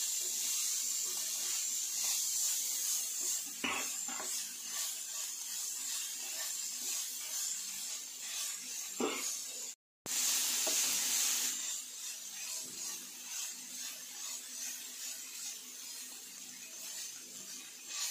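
Shredded chicken and onions frying in a nonstick pan: a steady sizzling hiss, with a wooden spatula scraping as it is stirred and two short knocks.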